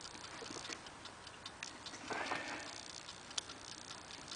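Faint small metallic clicks and a brief scrape about two seconds in: a bent bike-spoke tension tool and a mortise overlifter being worked into the keyhole of a Squire 440 lever padlock.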